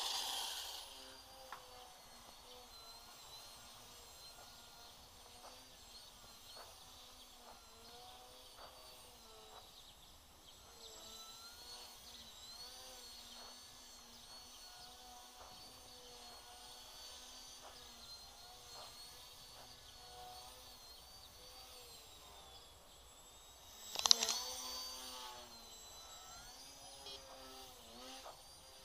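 FPV quadcopter's electric motors buzzing, their whine rising and falling in pitch as the throttle changes. A loud swell fades out at the start and a sudden loud surge comes late on.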